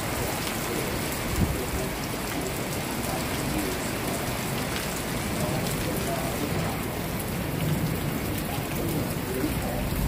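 Heavy rain pouring steadily in a thunderstorm, with one sharp tap about a second and a half in.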